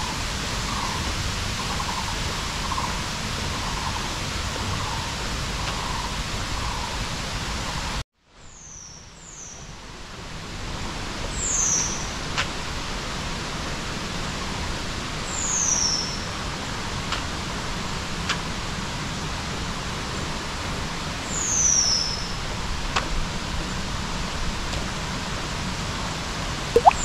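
Steady rush of a waterfall. It cuts off about 8 seconds in and fades back up. Over it a bird calls: quick chirps at first, then a high falling whistle repeated every four to five seconds.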